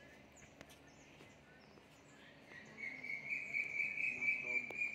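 A high, steady insect trill starts about halfway through and lasts about two and a half seconds, over scattered faint high bird chirps.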